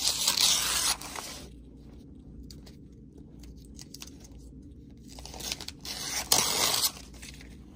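Paper release liner being torn off sticky-backed Floriani wash-away stabilizer hooped in an embroidery hoop: a burst of tearing lasting about a second at the start and another near the end, with faint paper rustling between.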